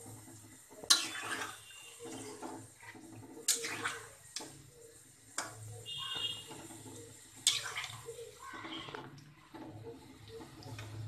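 A spatula stirring fish curry in a metal pot, sloshing through the watery gravy, with several sharp clinks as the spatula strikes the pot.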